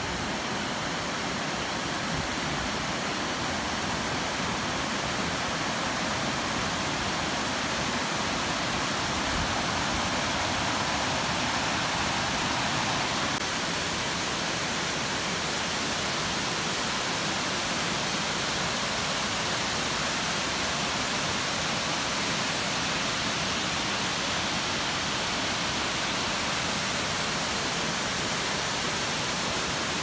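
Steady rushing of flowing and falling water, a river and then a long cascade waterfall pouring down a rock face. The tone changes slightly about 13 seconds in.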